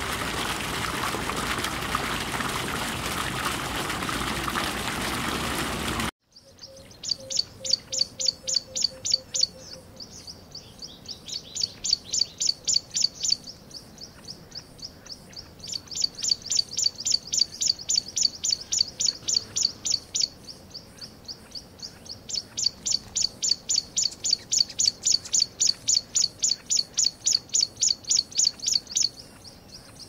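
Aquarium water running and bubbling as a steady hiss, cut off about six seconds in. Then a small bird's fast, even series of high chirps, about seven a second, comes in runs of a few seconds with short pauses between them.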